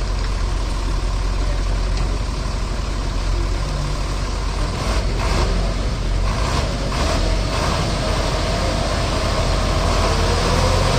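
Heavy diesel engine running steadily, with a few short rushing noises about five to seven seconds in.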